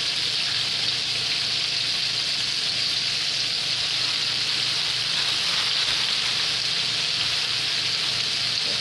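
Flour-breaded chicken strips frying in hot oil in a skillet: a steady sizzle.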